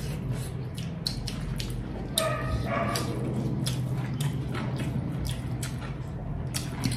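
Close-up eating sounds: chewing and lip-smacking with a steady run of small wet clicks, and fingers squishing rice and curry on metal plates. A brief high-pitched whine comes about two seconds in.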